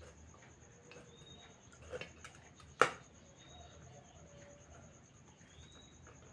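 Faint bird calls, with a light knock about two seconds in and a single sharp knock just before the three-second mark.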